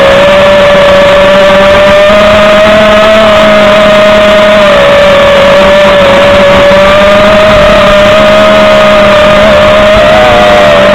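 5-inch FPV quadcopter's motors and propellers buzzing at a fairly steady throttle. It is one loud, continuous tone that wavers a little in pitch, with small wobbles near the end.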